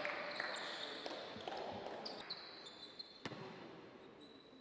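Game sounds on an indoor basketball court: a ball bouncing on the floor with a few sharp knocks and short high sneaker squeaks over a hall's background noise, fading gradually.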